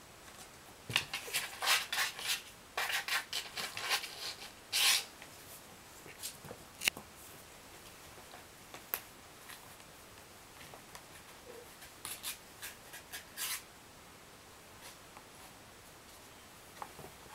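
Kittens scrabbling about inside a cardboard box, their claws scratching and rustling against the cardboard and its lining in short bursts during the first five seconds and again about twelve seconds in, with a sharp click or two between.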